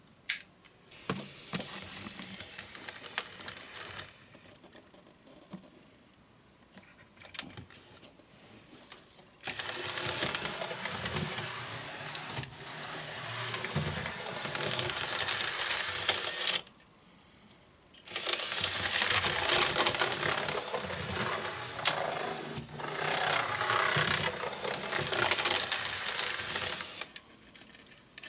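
OO gauge model A5 tank locomotive running on sectional track: its small motor whirring and its wheels clattering with sharp clicks over rail joints and points. The noise comes and goes in long loud stretches, dropping away to almost nothing for about a second around the middle.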